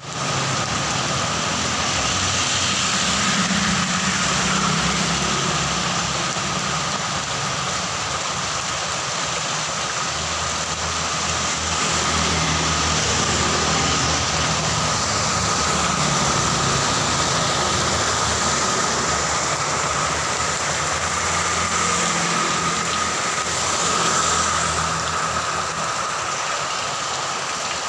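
Steady heavy rain, with a low hum underneath.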